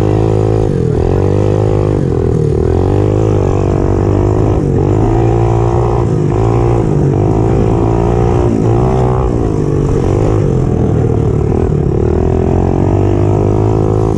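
Pit bike engine at racing revs, heard close up from on board; the engine note climbs and then drops every second or two as the rider works the throttle.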